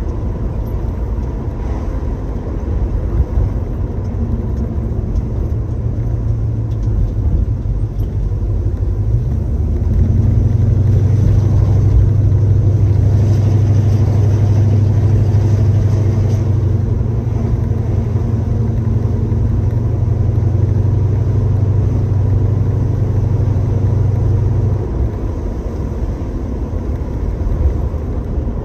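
1966 Chevrolet Chevelle driving, heard from inside the cabin: its engine gives a steady low drone over road noise. The drone grows louder about a third of the way in and eases off again near the end.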